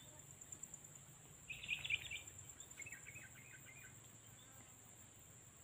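Faint countryside ambience: an insect's steady, high-pitched pulsing trill, with a short burst of bird chirps about a second and a half in and a looser run of chirps around three seconds in.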